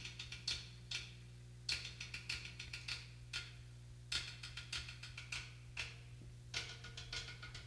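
Drum-kit cymbals tapped lightly with drumsticks: short clusters of quick metallic ticks, roughly one cluster a second, over a steady low hum.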